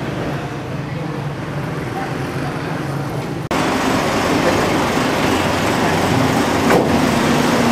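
Street traffic noise with a vehicle engine running. It becomes abruptly louder about three and a half seconds in.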